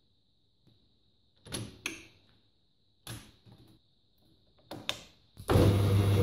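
Metal clunks and clicks as the gear levers and selector knob of a Hercus lathe's quick-change gearbox are shifted, five or so separate knocks. About five and a half seconds in, the lathe's motor starts and runs with a steady, loud hum.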